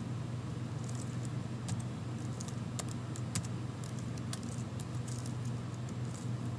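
Typing on a computer keyboard: an irregular run of light key clicks over a steady low hum.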